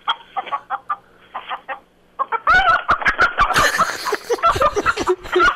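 A rooster clucking in short, quieter calls, then calling loudly and repeatedly from about two and a half seconds in as it is grabbed and held in a man's hands.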